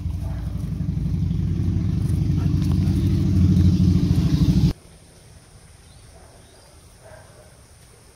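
An engine running steadily with a low drone that slowly grows louder, then cuts off suddenly a little under five seconds in.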